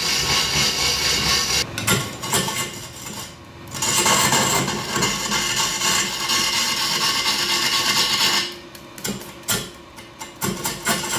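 Turning tool cutting into a large log spinning on a belt-driven wood lathe, a steady scraping hiss as chips are peeled off. The cut drops away twice, for a second or two each time.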